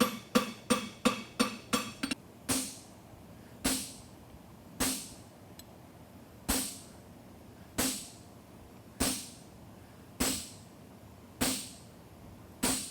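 Farrier's hammer striking a steel horseshoe on the anvil while fullering the nail groove. A quick run of ringing blows, about three a second, for the first two seconds, then single blows with less ring about every second and a quarter.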